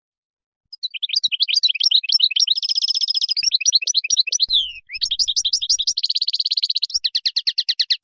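European goldfinch singing its wild song: quick, high twittering phrases of rapid trills and buzzy runs, starting about a second in, with a short break past the middle and a falling note to close each phrase.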